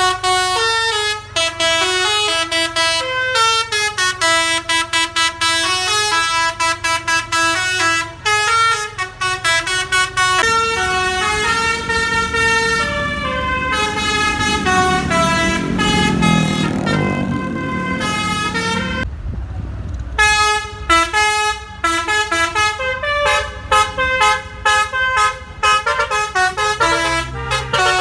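Bus telolet horn (basuri-type musical horns) played by hand from a keyboard-style manual actuator, sounding quick runs of stepping notes like a tune over the bus's idling hum. A low rumble swells up in the middle before the tune breaks off briefly and starts again.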